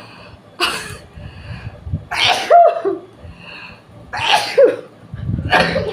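Human sneezing: four sharp sneezes in a row, about one every second and a half, several ending in a short voiced 'choo'. The sneezes are set off by tickling the inside of the nose with a long grass stalk.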